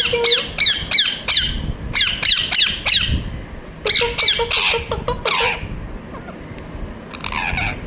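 Pet parrot chirping in quick runs of short, sharp calls, several a second, with brief pauses between the runs.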